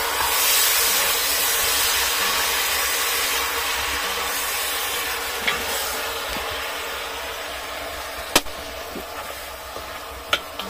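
Outdoor wood cooking fire hissing, the hiss slowly fading, with three sharp pops from the burning firewood, the loudest about eight seconds in.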